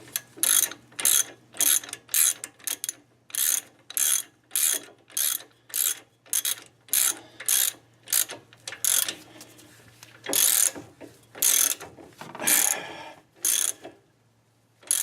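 Hand ratchet wrench tightening a nut: quick back-and-forth clicking strokes about twice a second, then four slower, longer strokes near the end as the nut draws tight.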